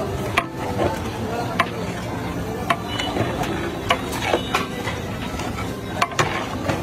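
Long metal ladle stirring in a large metal cooking pot, with sharp clinks and knocks against the pot at irregular intervals, over a steady background of street noise.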